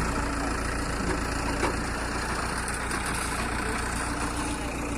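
Diesel engine of an Ace FX150 15-ton hydra crane running steadily at low speed, with a faint steady tone over the engine hum in the first second and again near the end.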